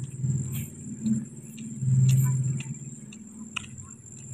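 Footsteps on a road, about two a second, under a low hum that swells and fades, loudest about two seconds in.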